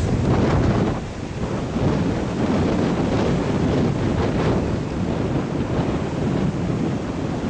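High wind gusting through oak trees and buffeting the microphone, giving a loud, heavy low rumble with a rushing hiss above it.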